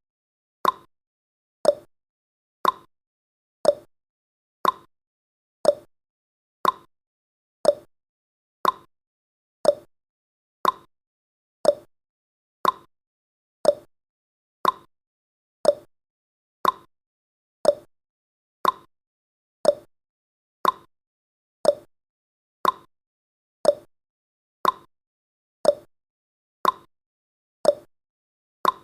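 Clock-ticking sound effect of a countdown timer: one short, sharp tick every second, evenly spaced.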